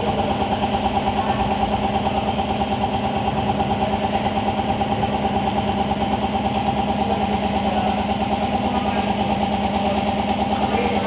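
A small engine idling steadily with an even pulsing throb.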